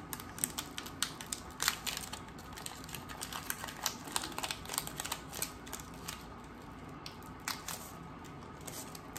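Foil Pokémon trading-card booster pack being torn open and its cards pulled out: a run of small irregular crinkles and clicks from the wrapper and card edges.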